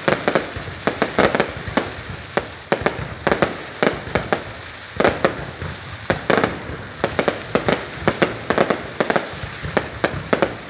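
Fireworks going off: a dense, irregular run of sharp bangs and pops, often several in quick succession.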